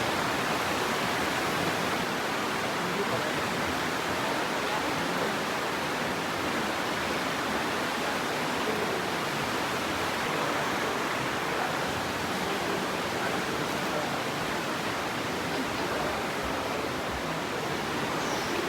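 The Aare river rushing through its narrow rock gorge: a steady, loud roar of fast white water.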